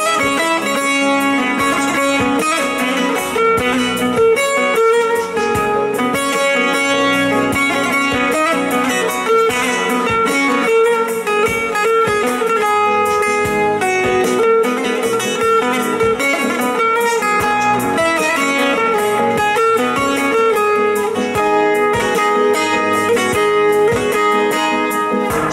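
Bağlama (long-necked Turkish saz) played with fast plectrum strokes in an instrumental break of a Turkish folk song, over a keyboard backing.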